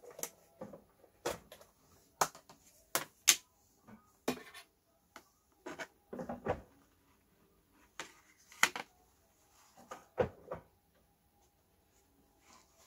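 Irregular sharp clicks and light knocks, about a dozen, from long metal tweezers and a plastic tub being handled against a small glass terrarium.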